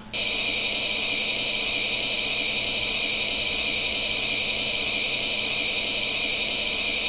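Hasbro Iron Man 2 electronic helmet playing a sound effect through its small built-in speaker: a steady, even hiss that follows its "local reactor is overloading" voice line, the reactor-overload effect. It cuts off just before the helmet's next voice line.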